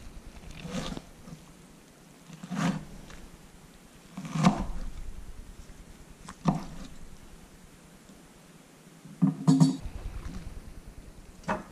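Kitchen knife cutting through oyster mushrooms onto a wooden cutting board: about seven separate knocks of the blade on the board, spaced a second or two apart, two of them close together near the end.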